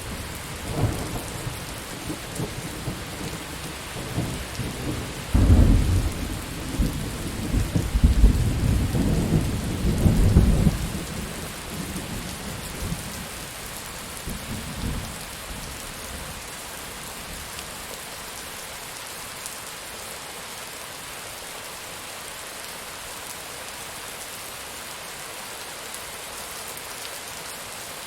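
Steady heavy rain with a roll of thunder: deep rumbling starts about a second in, swells to its loudest in the middle, and fades out around halfway through, leaving the rain alone.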